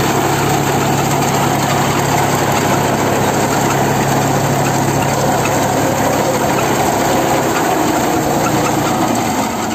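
Tractor engine running steadily while its front-mounted reaper cuts standing wheat, the cutter's mechanical clatter mixed in with the engine. The low engine hum fades about eight seconds in.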